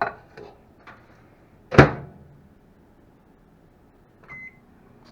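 A microwave oven door is shut with a loud clunk about two seconds in, after a few light handling clicks. Near the end a single short keypad beep sounds, and the oven starts to hum as it begins heating.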